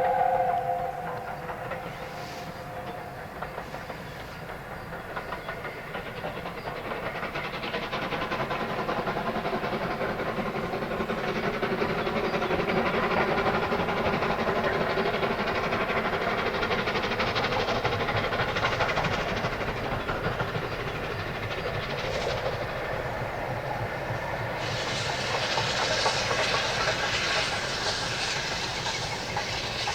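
A preserved steam locomotive passes with its train. A two-note whistle ends about a second in, followed by a steady rumble of wheels clicking over the rail joints. A sharp hiss starts suddenly about three quarters of the way through.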